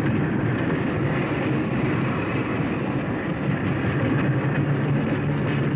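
Pacific Electric interurban electric railcar running along the track: a steady rumble of wheels on rail and motors, with a low hum that grows stronger about four seconds in.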